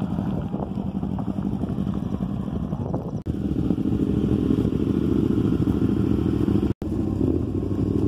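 Motorcycle engines idling close by, a steady fast pulsing run that grows louder partway through. The sound cuts out for an instant twice.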